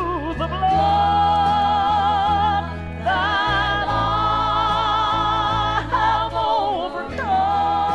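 Music from a 1977 gospel album recording: long held notes with vibrato, changing about every three seconds, over a bass line that steps from note to note.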